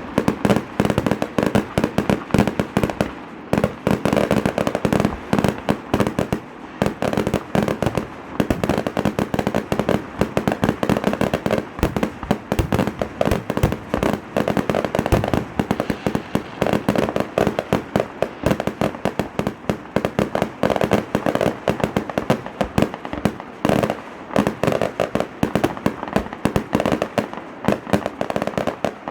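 A fireworks display: a dense, continuous barrage of sharp bangs, many a second, with no pause.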